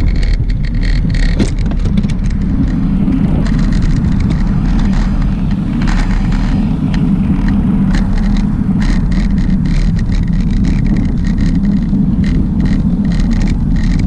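Heavy, steady rumble of travelling over a rough surface, with frequent rattling clicks and knocks throughout.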